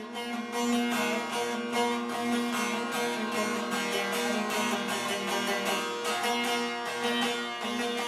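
Two Turkish saz (bağlama) long-necked lutes strummed together in a fast, even rhythm over a steady drone: an instrumental passage of an aşık folk song.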